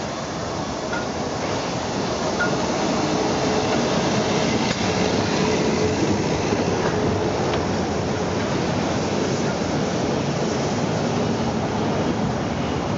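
Harz narrow-gauge steam tank locomotive 99 7237 and its coaches rolling past close by, a steady rumble of wheels on rail that grows louder over the first few seconds as the engine draws level. Faint squeals from the wheels come through in the middle.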